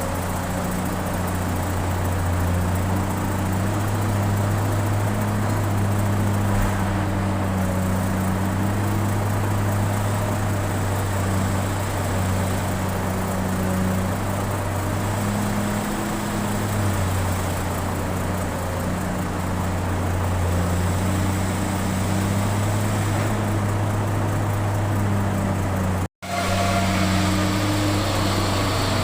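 Excavator's diesel engine running steadily under load, a low drone that eases and picks up again now and then; the sound cuts out for an instant near the end.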